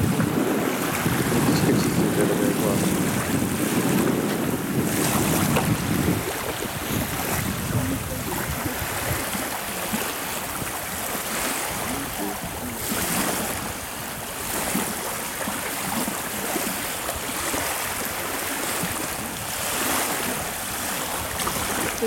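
Small river waves washing and splashing onto the shore, surging every few seconds, with wind buffeting the microphone as a heavier low rumble in the first six seconds.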